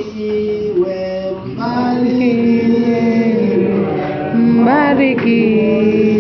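A church hymn being sung, with long held notes.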